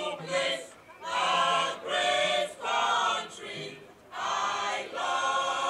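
Women's choir singing together in short phrases, ending in one long held note from about four seconds in.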